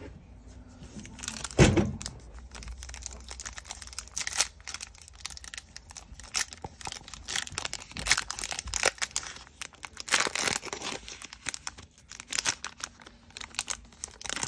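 A foil Topps Chrome trading-card pack being ripped open and its wrapper crinkled by hand. There is a loud sudden noise about two seconds in, then quick crackling rustles and tearing until the end.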